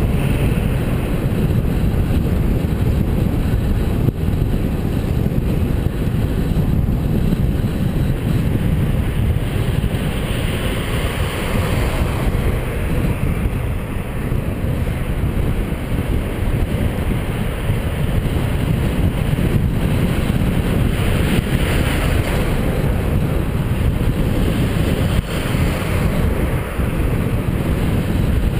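Steady rush of wind buffeting the microphone of a camera riding on a moving bicycle, mixed with the noise of cars driving alongside in street traffic.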